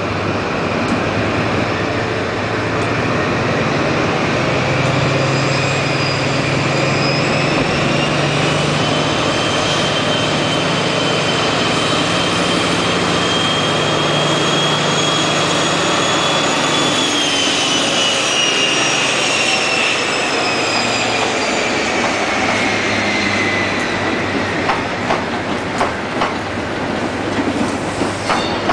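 Diesel engine of a GNER InterCity 125 (Class 43) power car pulling away under power, its high whine rising in pitch, then falling away as the power car passes about two-thirds of the way through. Near the end, a run of clicks as the coaches' wheels cross rail joints.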